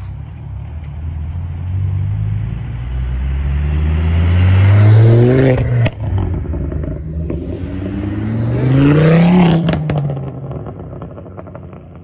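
A car accelerating hard, its engine note climbing steadily, breaking off briefly for an upshift about six seconds in, then climbing again before fading away as it drives off.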